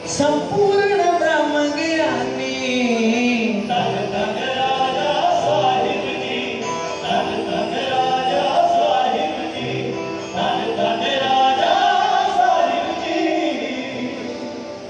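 Punjabi devotional song in praise of Raja Sahib: a singer's drawn-out, sliding melodic lines over musical accompaniment.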